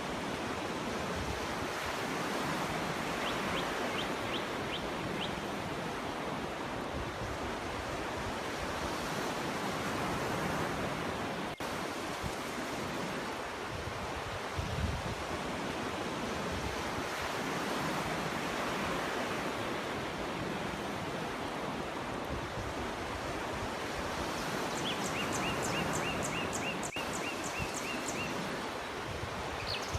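Sea waves washing onto a beach: a steady rushing that swells and eases slowly. A few seconds in, and again for a few seconds near the end, a run of rapid, short, high chirps sounds over the surf.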